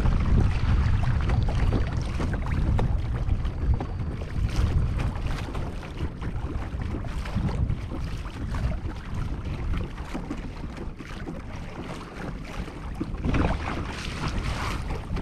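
Wind buffeting the microphone over water splashing and slapping against the hull of a Hobie Outback kayak moving through choppy bay water. The low wind rumble is heaviest in the first few seconds.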